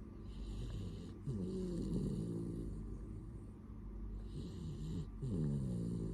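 Dog snoring in its sleep: two long snores, about a second in and again near the end, each starting as an airy hiss and turning into a louder pitched snore whose pitch wavers.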